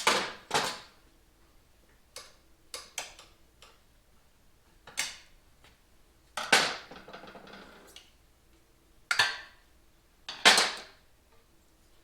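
Metal motorcycle parts and hand tools being handled on a workbench: a series of separate clanks and clinks a second or two apart, one about six and a half seconds in ringing on briefly.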